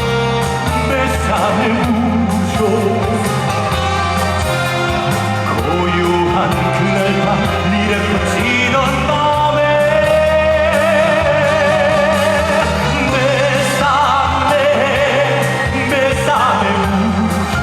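Live trot song with a backing band, bass and brass, and a male singer holding long notes with vibrato over it.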